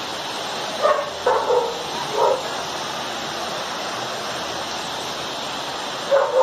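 A dog barks several times in quick succession about a second in, and twice more near the end, over the steady rush of flowing floodwater.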